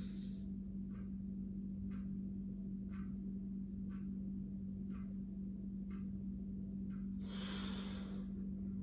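Nadi shodhan alternate-nostril breathing: the breath is held, quiet for several seconds, then a breath through the nose about seven seconds in that lasts about a second. A steady low hum and faint ticking about once a second sit underneath.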